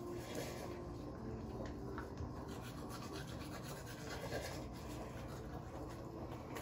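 Manual toothbrushes scrubbing teeth: a quiet, steady scratchy brushing.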